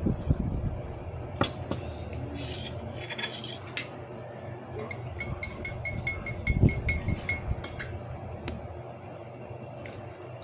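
A dinner plate clinking and scraping as fingers pick food from it, with a run of quick light clinks about five to eight seconds in. A couple of dull knocks against the table come in between.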